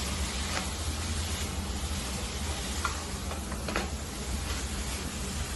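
Chopped vegetables sizzling in butter in a pan while being stirred, with a few short scrapes of the spoon against the pan.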